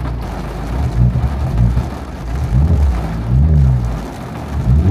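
Honda Civic Type R FL5's turbocharged 2.0-litre four-cylinder through a Spoon exhaust with both resonators deleted, heard from inside the cabin while driving. The engine note rises and falls with the revs a few times, with no drone.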